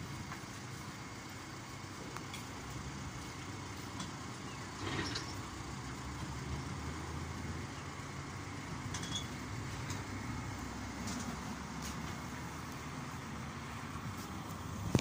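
Steady street traffic noise and low vehicle rumble as an AKSM-32100D trolleybus drives up and pulls in to the stop, with a brief louder swell about five seconds in.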